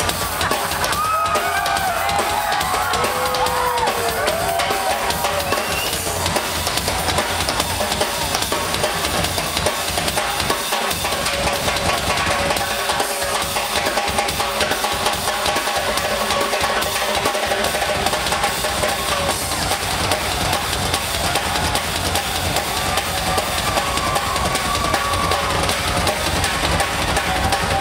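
Live drum solo on a full rock drum kit: busy snare and tom rolls over a steady bass drum, with a few sliding high tones over it in the first few seconds and again near the end.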